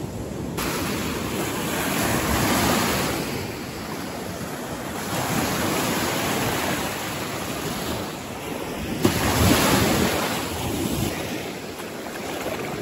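Small freshwater lake waves breaking and washing up over the sand in the shallows, surging about every three to four seconds; the loudest wash comes a little past the middle.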